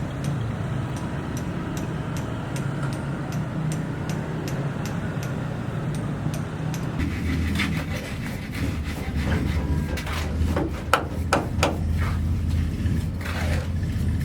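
Building-site work noise: a steady low hum with regular ticking, then about halfway through it changes suddenly to a deeper rumble with irregular knocks and scrapes.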